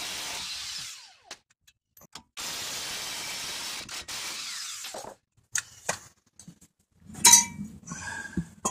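Cordless impact wrench running in two steady bursts on the brake caliper bracket bolts, which are held with thread lock. Near the end come sharp metal clinks and ringing as the steel bracket and parts are handled.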